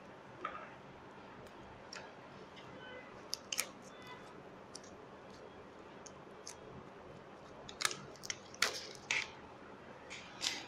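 Scattered light clicks and taps as a screwdriver and hands work a laptop LCD panel loose from its display lid. The sharpest clicks bunch together in the last few seconds as the panel is lifted away.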